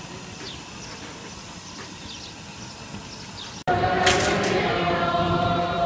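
Low open-air background with a few short bird chirps, then an abrupt cut about three and a half seconds in to a crowd of Orthodox Jewish men praying aloud together, many voices chanting at once under a vaulted stone hall, much louder than before.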